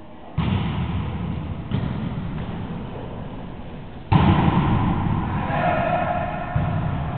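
A volleyball hit four times, each a sharp smack with a long echo off the sports-hall walls, the loudest about four seconds in as a player attacks at the net. A shout rings out shortly after that hit.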